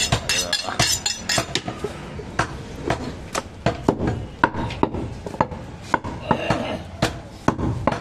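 A brief metallic clatter as meat is handled in a metal basin, then a cleaver chopping through a goat leg on a wooden block, with sharp chops about twice a second.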